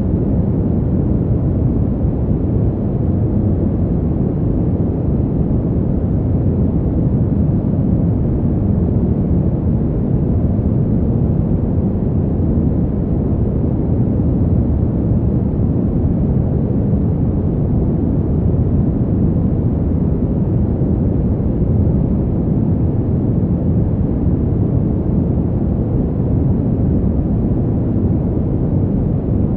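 Fan heater running with a steady, low rush of air that never changes.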